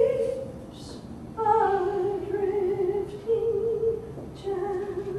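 A woman singing unaccompanied, a slow melody of long held notes that steps downward near the end.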